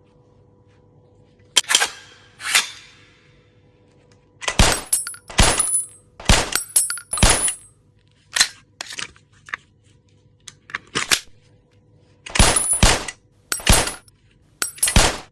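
Glock pistol sound effects: a string of sharp gunshots and metallic clacks in uneven groups, some with a bright metallic ring.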